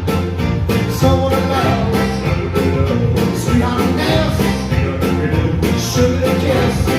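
A song with a steady beat played through a stereo pair of IKEA Eneby speakers.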